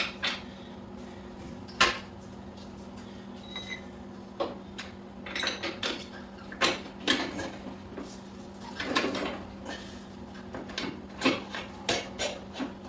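Motorcycle rear axle shaft being worked through the swing arm and wheel hub by hand: scattered metal clicks, knocks and scrapes, some in quick clusters, over a steady low hum.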